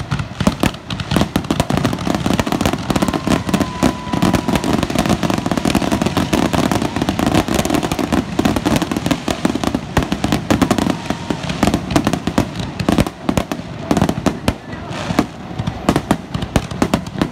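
Aerial fireworks display: a rapid, unbroken barrage of shell bursts and crackling, many reports a second overlapping.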